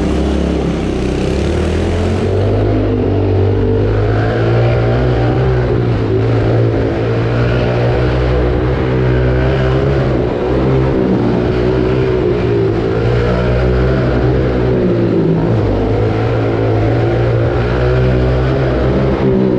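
Pit bike engine running steadily while being ridden, its pitch rising and falling a little as the throttle is worked.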